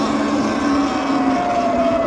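Electric bike's motor whining steadily under a rush of wind and tyre noise while riding, one whine sliding slowly lower in pitch from about a second in.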